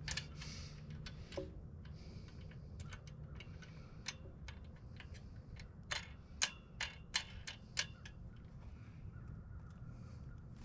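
Irregular sharp clicks and taps from handling and fitting the parts of a miter saw stand during assembly, with a cluster of louder clicks about two-thirds of the way through, over a low steady hum.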